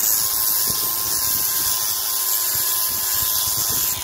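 Angle grinder running at a steady high whine while its disc abrades excess mortar and cement smeared over the face of brick.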